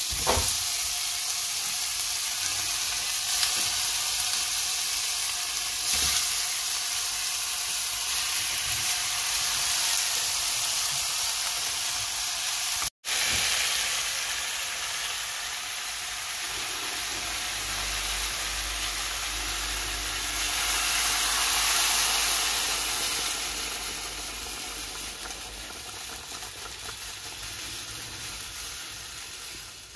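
Sea bream pieces sizzling in hot oil with onions and tomatoes in a stainless steel pan: a steady frying hiss with a few light knocks of the fish going in. The sizzle eases off toward the end.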